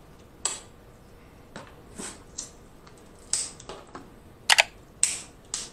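Snow crab legs being cracked and picked apart by hand, with eating mouth noises: a string of sharp cracks and clicks. The loudest two come in quick succession about four and a half seconds in.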